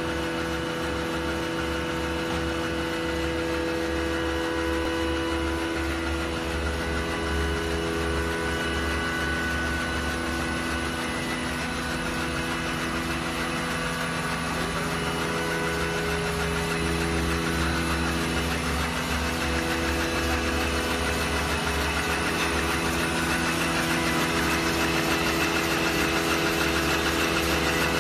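Non-woven facial tissue V-folding machine running: a steady mechanical hum with several constant tones over a low pulsing drone, growing a little louder toward the end.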